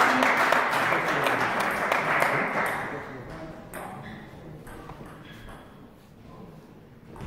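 Spectators clapping after the point ends, loud for about three seconds and then dying away. Short, sharp pings of a table tennis ball on the table and bats run on as the next point is readied.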